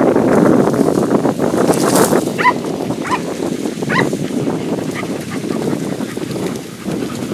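Podenco Andaluz hounds giving a handful of short, high, rising yelps while hunting rabbits, over constant rustling of bodies pushing through dense reeds.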